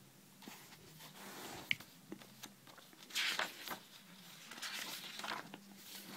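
Sheets of paper being handled and turned over, rustling in three or four short swishes, with one sharp tick near the start.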